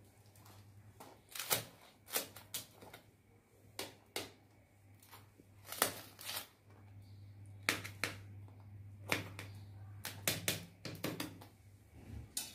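Kitchen knife cutting through toasted pav buns, its blade clicking and scraping against a stainless-steel plate in a dozen or more short, sharp strokes at an uneven pace.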